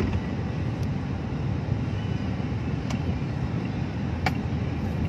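Steady low rumble of a vehicle's engine and road noise heard from inside the cabin, with three faint clicks.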